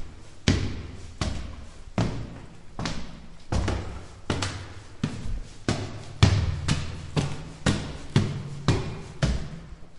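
Footsteps climbing stone stairs at a walking pace, each a sharp strike with a short fading echo.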